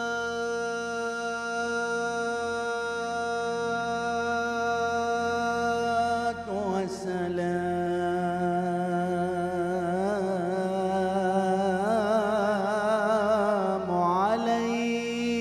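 Arabic religious inshad: an electronic keyboard holds one steady sustained chord. About six and a half seconds in, a man's voice enters with a long melismatic, wavering sung line over it, and near the end the voice drops out and the held keyboard chord is left.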